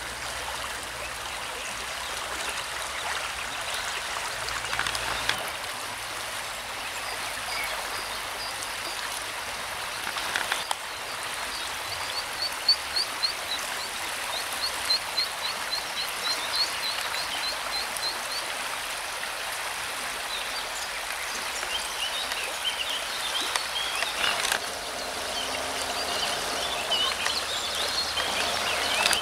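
Fast-flowing river water rushing steadily, with a quick run of high-pitched peeps from mallard ducklings about halfway through and scattered chirps near the end.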